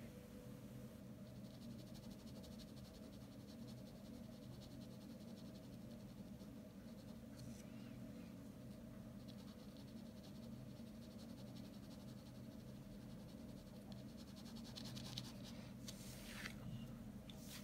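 Ballpoint pen scratching on drawing paper in quick, repeated shading strokes, faint over a low steady hum.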